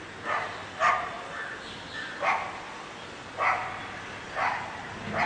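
A dog barking in short, sharp barks, about six of them roughly a second apart.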